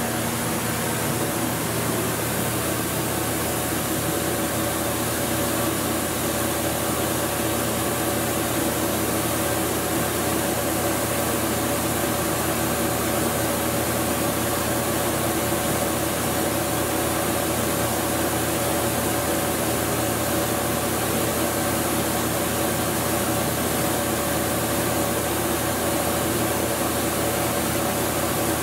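Walter Helitronic Vision CNC tool grinder running its warm-up program: a steady mechanical hum and hiss with a few steady tones over it, unchanging throughout.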